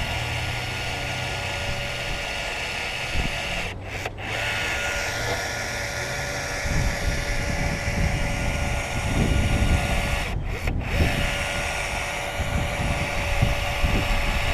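Small power tool motor whirring steadily with a constant whine, cut off briefly twice, with low rumbling noise underneath in the second half.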